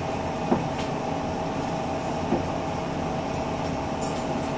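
Steady mechanical hum of an appliance running in the room, with a couple of faint clicks of forks on plates.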